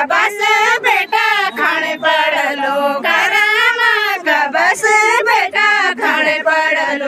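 Women singing a Garhwali jhumailo folk song together, high voices holding long, swooping sung lines close to the microphone.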